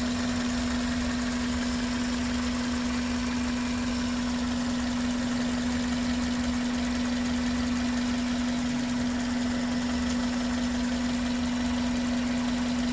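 2001 Toyota Corolla's 1.8-litre four-cylinder engine idling steadily, with a constant hum.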